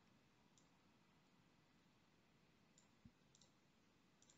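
Near silence with a few faint computer mouse clicks and one soft low thump about three seconds in.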